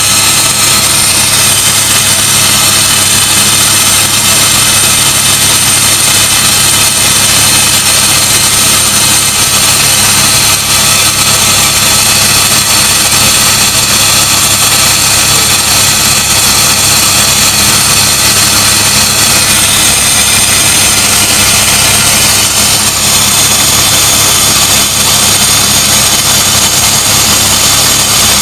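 Helicopter in flight: loud, steady engine and rotor noise, a high whine over a low drone.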